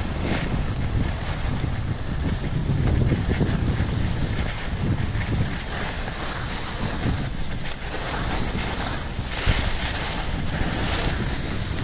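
Wind rushing over the camera's microphone, with skis sliding and scraping over packed snow; a high hiss grows stronger about halfway through.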